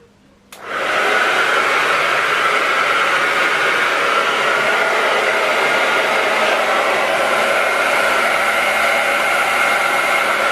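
Handheld hair dryer switched on with a click about half a second in, then running steadily with a loud rush of air and a faint whine.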